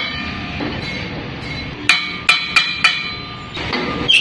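Four sharp metal-on-metal knocks, each ringing briefly, as a motorcycle wheel and brake drum are set in a lathe. Near the end the lathe starts up with a loud clunk and the wheel begins to spin.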